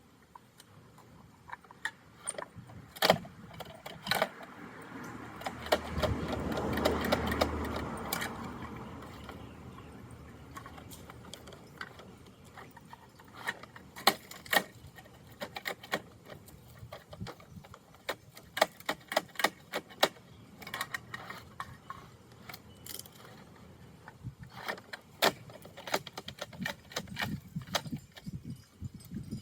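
Plastic clicks and rattles of a Bruder toy garbage truck and its contents being handled, with a longer, louder rattle about six seconds in.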